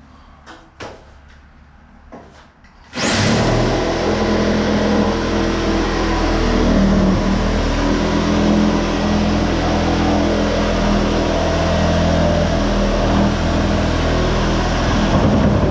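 An electric power tool's motor spins up with a fast rising whine about three seconds in. It runs loud and steady for about twelve seconds, then winds down with a falling whine near the end.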